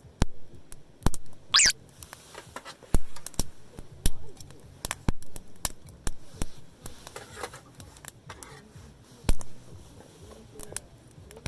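Wood campfire crackling, with irregular sharp pops and snaps and a brief falling squeal about one and a half seconds in.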